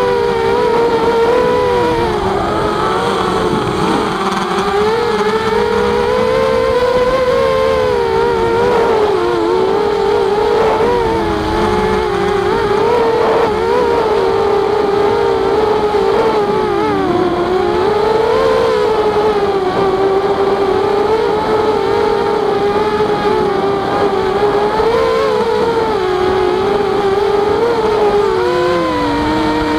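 Walkera Rodeo FPV quadcopter's motors and propellers whining steadily in flight. The pitch dips and rises every few seconds as the throttle changes, over a rush of air noise.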